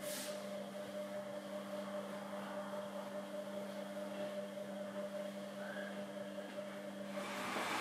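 A steady low hum with a few held tones over faint hiss, giving way to a louder hiss about seven seconds in.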